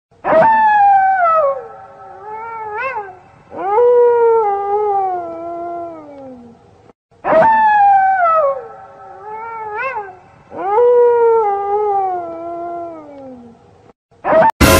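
Eerie wailing sound effect, played twice in the same order. Each time there is a long falling howl, a few short rising yelps, then another long falling howl. A sudden loud crash cuts in near the end.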